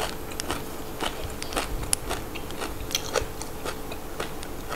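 Close-up chewing of crisp fresh raw vegetables: irregular crunches, several a second.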